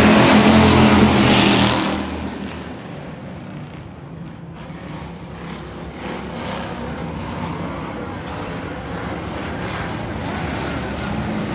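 Several pure stock dirt-track race cars running at racing speed: loud as the pack passes close by for the first two seconds, then dropping to a quieter, distant engine sound as the cars run down the far side of the track, and building again near the end.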